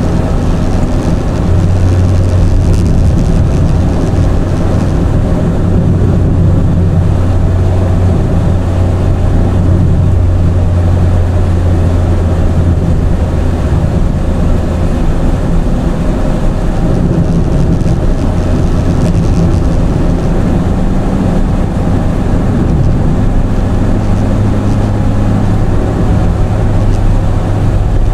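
Car on the move: a steady drone of engine and road noise with a low hum.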